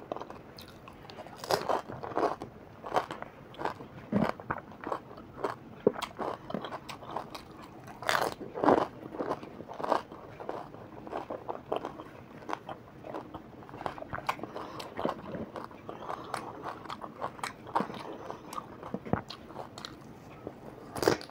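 Crisp pani puri shells stuffed with green chillies being bitten and chewed, an irregular run of crunches and chewing with a few louder crunches here and there.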